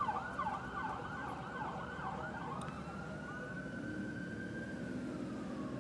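Emergency-vehicle siren in a fast yelp of rapid up-and-down sweeps, changing about two and a half seconds in to a slower wail that rises and then falls, over a low traffic rumble.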